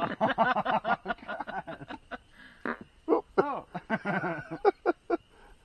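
Men laughing and snickering in quick repeated bursts of voice.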